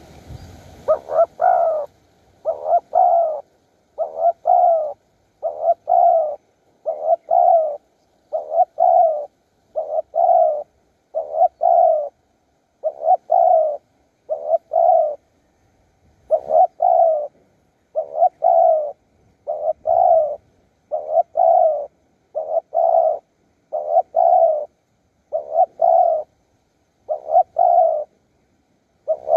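Spotted dove cooing over and over, a short coo phrase about every second and a half, starting about a second in.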